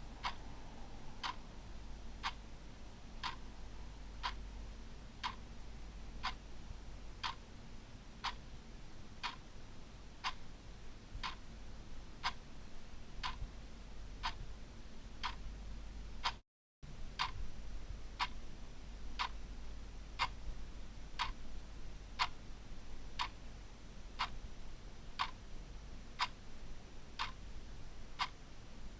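Clock ticking steadily, about one tick a second, with a brief cut-out in the sound just past halfway.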